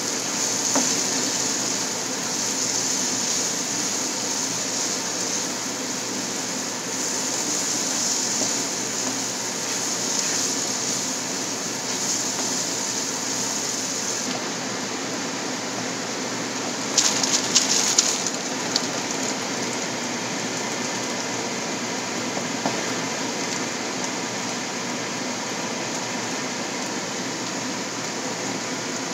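Diced chicken, onion and garlic sizzling steadily in oil in a nonstick frying pan. A little past halfway, a short run of clicks and scrapes as the spatula stirs against the pan.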